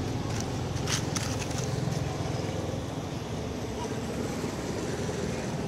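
Steady low rumble of wind buffeting the microphone, with a few faint clicks about one to two seconds in.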